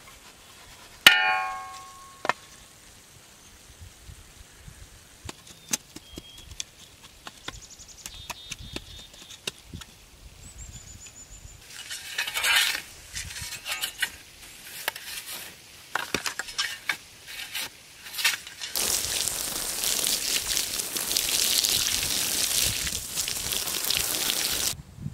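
A sharp metallic clang that rings on briefly about a second in, then scattered taps and scraping as soil is packed around a wooden post. For the last six seconds, a steady hiss of water from a garden hose pouring into the post hole.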